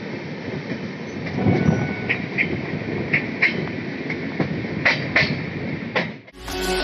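Indian Railways express coach running slowly, heard from the open door: a steady rumble with pairs of sharp clicks as the wheelsets cross rail joints and points. It cuts off suddenly near the end, replaced by music.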